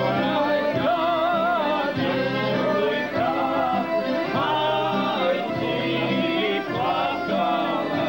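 Voices singing a Bosnian folk song in held, wavering notes, over steady instrumental accompaniment.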